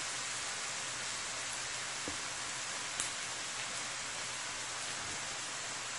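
Chopped onion, scallion and peppers sizzling steadily in hot oil in a stainless steel skillet.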